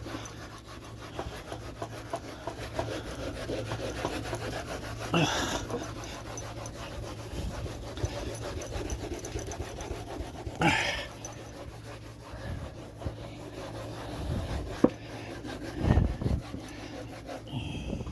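Steady back-and-forth scrubbing on a refrigerator door, a scratchy rubbing that runs on without a break. Two short louder sounds come about five and ten seconds in, and a low thump comes near the end.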